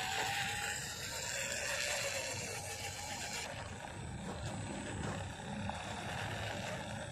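MN99S 1:12 scale RC crawler driving over loose gravel and dirt: its small electric motor and gears whine, wavering in pitch in the first couple of seconds, over a steady crunching rumble from the tyres.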